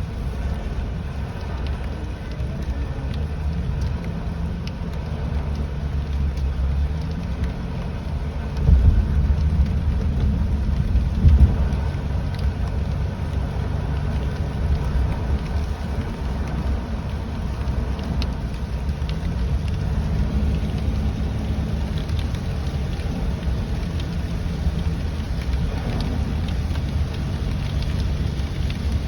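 Inside a moving car in the rain: a steady low road and engine rumble with an engine hum that slowly rises and falls, and light rain ticking on the car. Two loud thumps come about nine and eleven seconds in.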